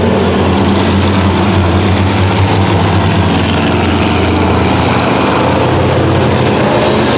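Engines of several pure stock and 4-cylinder dirt-track race cars running steadily as they circle the dirt oval together, working the track in after a rain delay.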